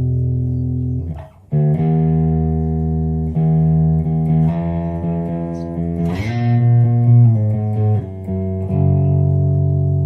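Electric bass played through a Fender Rumble LT25 bass combo amp: a run of sustained notes, changing every second or two, with a short break about a second in and a slide up about six seconds in.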